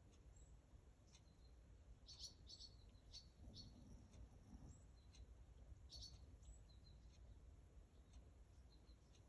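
Chihuahua snoring faintly in deep sleep: soft low snores every two to three seconds, with brief high chirps and clicks scattered among them.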